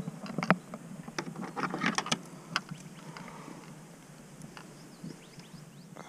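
Sharp clicks and knocks, clustered in the first two and a half seconds and then down to a few faint ticks: a hooked largemouth bass and its plastic Hula Popper surface lure being handled in a kayak.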